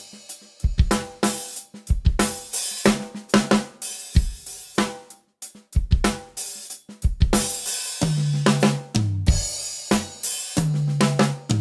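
Acoustic drum kit played: a groove of bass drum, snare, hi-hat and cymbal strokes, broken by ringing tom hits about eight seconds in and again near the end.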